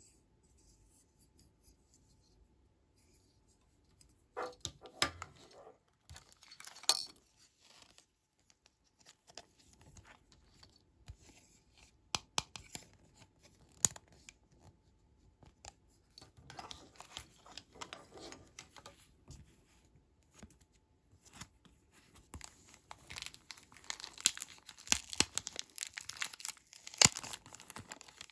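Hands handling hard plastic toy pieces, with scattered clicks, taps and rustles after a few quiet seconds. Near the end a clear plastic packaging bag crinkles steadily as it is handled.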